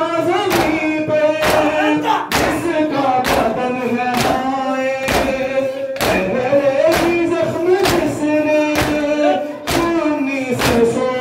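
A crowd doing matam, Shia mourning chest-beating: open-handed strikes on the chest land together about once a second, in time with voices chanting a mournful lament (nauha).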